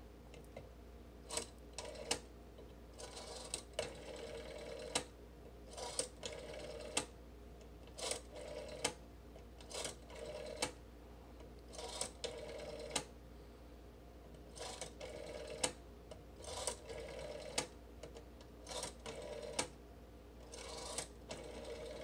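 A rotary telephone dial being pulled round and let go digit after digit, each turn with a click and a whirring about a second long as the dial spins back, dialling a ten-digit number.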